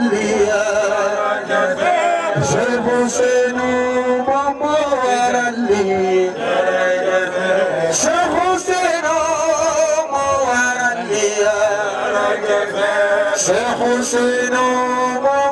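A man chanting an Islamic devotional song (zikr) into a microphone, in long wavering, ornamented held notes.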